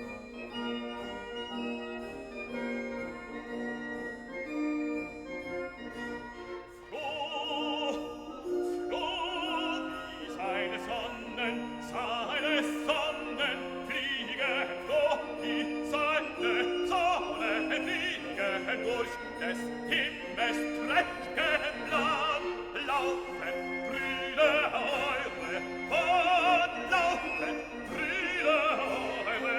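Classical music: instrumental notes at first, then operatic singing with strong vibrato over the orchestra, the voices entering about seven seconds in.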